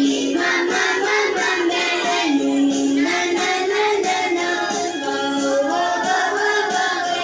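A children's song: a sung melody over a musical backing.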